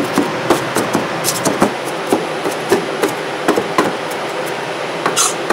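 Kitchen knife chopping and mincing ginger on a wooden cutting board: quick, uneven knocks of the blade against the board, about two to three a second.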